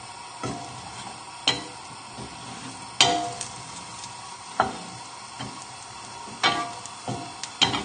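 Wooden spoon stirring chopped chorizo, shallots and garlic in a frying pan, knocking against the pan about seven times at uneven intervals, over a faint sizzle as the pan starts to heat.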